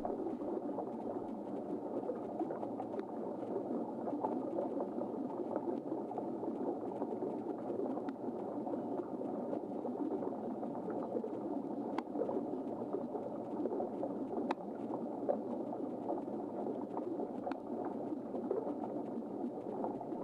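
Steady, muffled bubbling rush of water around the FiFish V6 underwater drone, picked up by the drone's own camera as it climbs, with a few faint clicks.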